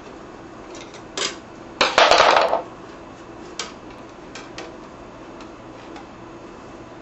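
Steel wire guard of a 1942 Westinghouse desk fan being worked loose and pulled off. Metal wires click, then rattle in a loud clatter lasting under a second about two seconds in, followed by a few lighter clicks.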